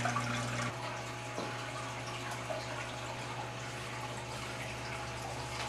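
Steady background hiss of room tone with a low, even hum underneath.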